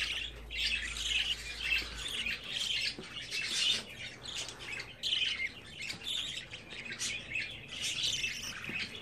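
Budgerigar chick begging for food while being hand-fed from a syringe: rapid, repeated squawking cheeps with short breaks, kept up throughout.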